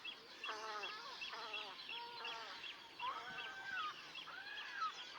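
Several waterbirds calling: a run of overlapping harsh, nasal calls, some dipping and some arching in pitch, over a quick series of short high notes repeated about three times a second.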